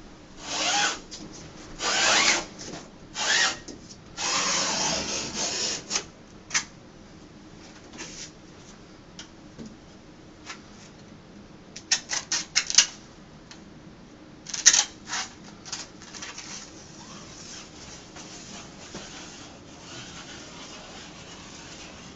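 Utility knife blade drawn along a ruler, slicing through two overlapping layers of peel-and-stick vinyl wall mural in several rasping strokes, followed by a quick run of sharp clicks about halfway through and a short scrape a couple of seconds later.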